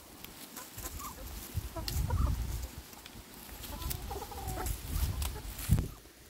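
Kernels being twisted off a dried corn cob by hand: scattered crackling clicks over close rustling and handling rumble, with soft clucking of chickens and a sharp thump near the end.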